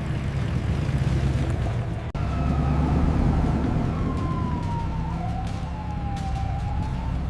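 Police siren wailing in slow rising and falling glides over a steady low rumble, starting after an abrupt break about two seconds in.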